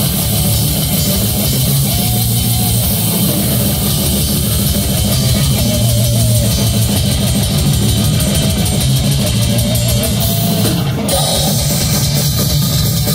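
Metal band playing live through a stage PA: distorted electric guitars over a drum kit, loud and dense.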